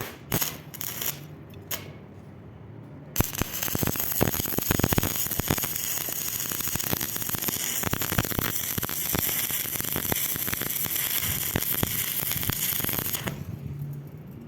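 A few sharp knocks, then about three seconds in a stick-welding arc strikes and crackles steadily for about ten seconds before it stops: arc welding on thin square tubing.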